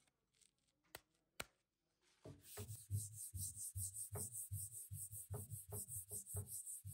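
Hand sanding: a round sandpaper disc on a hand-held sanding pad rubbed back and forth over the coated top of a dresser, in even strokes about three a second. The strokes start a little after two seconds in and stop abruptly at the end, after two small clicks earlier on.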